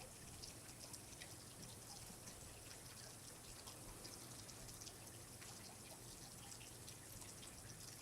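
Faint trickling water with many light, scattered drips.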